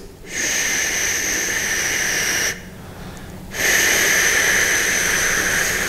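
A man voicing the qigong healing sound for the liver, 'shu', as a long whispered 'shhh' with a silent 'u'. He makes it twice, each hiss about two seconds long, with a short pause between.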